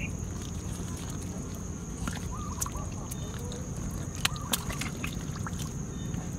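Fish splashing and stirring in a shallow pool of muddy water, with a few sharp splashes over a steady low rumble. Short, faint animal calls come through a few times in the second half.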